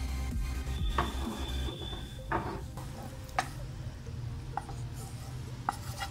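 Wooden spatula scraping thick masala out of a pan into an aluminium pot, with a few sharp knocks of metal on metal and a short high ring after the first one. A steady low hum runs underneath.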